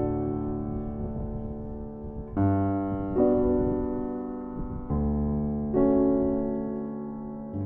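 Background music: slow solo piano chords, each struck and left to ring and fade before the next.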